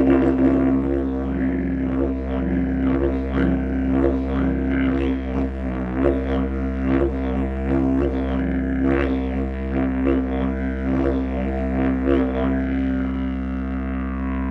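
Didgeridoo pitched in B, made by Paco Moreno, played as one continuous very low drone with a rich stack of overtones. The player's mouth shapes rhythmic changes in tone over it, and these settle into a steadier drone near the end.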